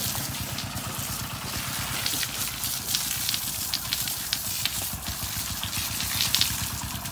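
A garden hose spraying water onto a water buffalo and wet concrete, with scattered sharp splashes and knocks. A steady low mechanical drone runs underneath.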